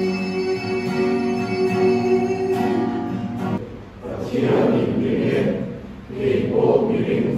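Choir singing, holding a long chord that ends about three and a half seconds in, followed by shorter, uneven sung phrases.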